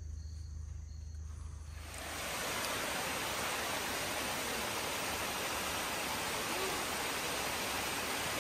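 Small woodland waterfall cascading over rock ledges: a steady, even rushing of water that starts about two seconds in, after a quieter stretch with only a faint low hum.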